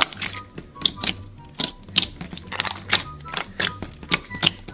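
Green slime being kneaded, squeezed and poked by hand, giving an irregular run of sharp wet clicks and pops, several a second. Quiet background music runs underneath.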